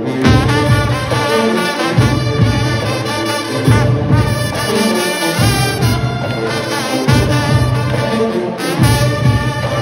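Junkanoo band playing live: brass horns holding notes over heavy beats of goatskin drums.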